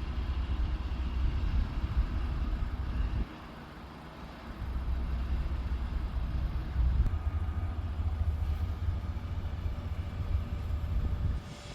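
Low rumble of a passing train, dropping away briefly about three seconds in and again near the end.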